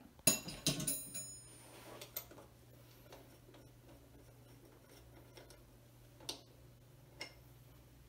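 A sharp metallic clink that rings briefly near the start, then a few faint clicks and taps as hand tools and metal crank parts of a BMX bike are handled.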